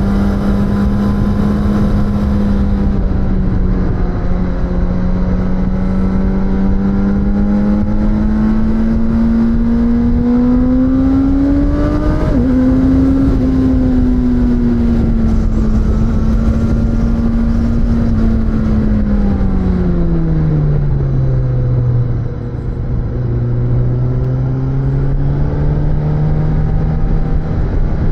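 Suzuki GSX-S1000 inline-four engine under way, its pitch climbing slowly, then a brief quick drop about twelve seconds in. The pitch falls off between roughly nineteen and twenty-two seconds as the revs come down, then holds steady lower, over a constant rush of wind and road noise.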